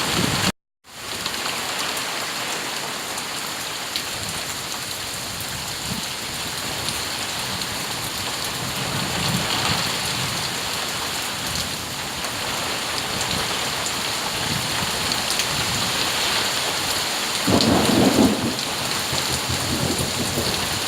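Heavy rain in a summer thunderstorm: a steady loud hiss of rain with low swells of thunder, the strongest near the end. The sound drops out completely for a moment just under a second in.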